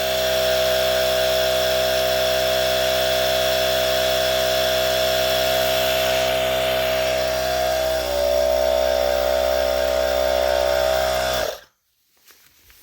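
Battery-powered portable tire inflator (Mellif 2-in-1 air compressor on a Milwaukee M18 battery) running steadily as it pumps up a car tire. Its pitch drops slightly about eight seconds in, and it cuts off suddenly near the end, where it reaches the 35 PSI it was set to.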